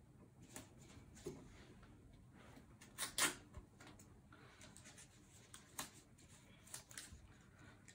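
Quiet rustling and light taps of paper craft strips being handled and folded, with one short, sharp rip about three seconds in as a small piece of tape is torn off.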